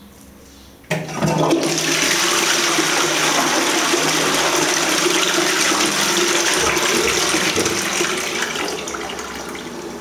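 A toilet flushing: the rush of water starts suddenly about a second in, runs loud and steady for several seconds, and eases off near the end.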